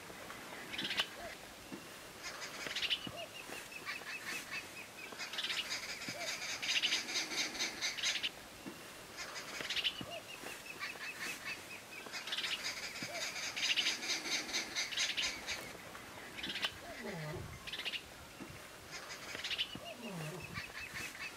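Birds calling: a run of clear notes falling in pitch, heard three times, between longer spells of dense, rapid chattering.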